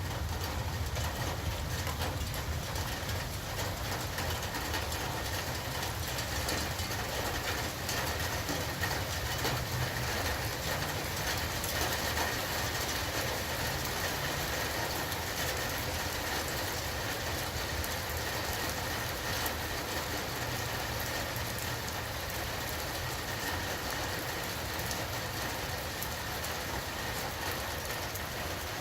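Steady rainfall with a low rumble underneath.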